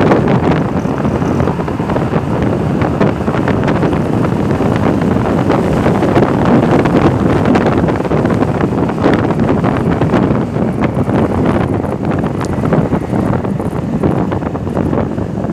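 Steady, loud wind rush buffeting the microphone of a Vespa 300 Sei Giorni scooter on the move, with the scooter's running and road noise underneath.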